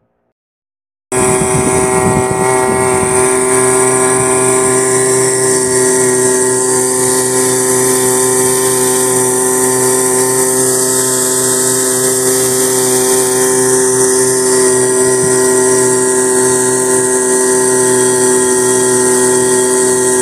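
Outboard motor of a small boat running steadily at speed, its pitch holding level, with a steady high hiss over it. It cuts in abruptly about a second in, after a moment of silence.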